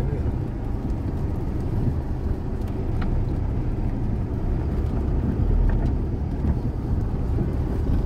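A moving vehicle's engine and road rumble, steady and low, heard from on board while travelling along a plantation track.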